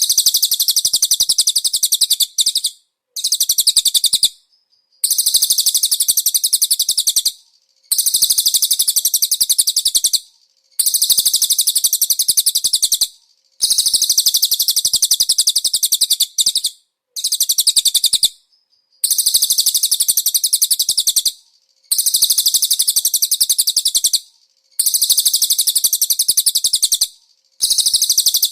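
Cililin song: a high, very rapid trill repeated in bouts of about two seconds, each cut off by a short pause, about eleven bouts in a row.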